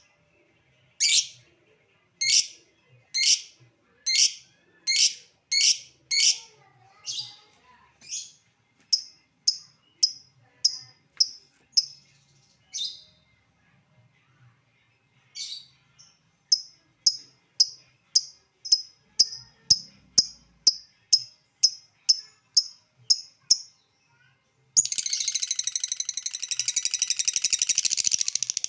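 Lovebird calling: a run of sharp, separate high chirps, the ticking call keepers call ngetik. About 25 seconds in it breaks into a dense, unbroken rapid chatter, the long ngekek call.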